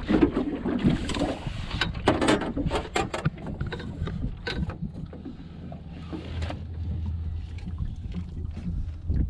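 Clatter of knocks and scuffs on a small boat's deck as a landed redfish is handled and laid out on the floor mat, busiest in the first few seconds. A steady low rumble runs underneath, plainest in the second half.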